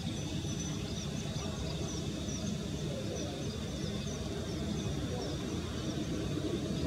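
Outdoor ambience: a steady low rumble with faint, short high chirps of small birds recurring every half second or so.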